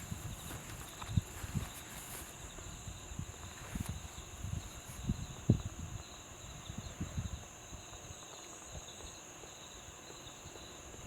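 Small monsoon stream running, with insects droning in a steady high pitch and irregular soft low thumps.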